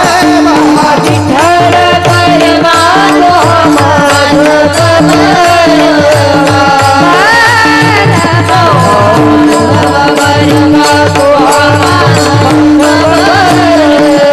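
Devotional kirtan music: a woman sings a gliding melodic line over a steady held drone note and rapid hand-drum strokes.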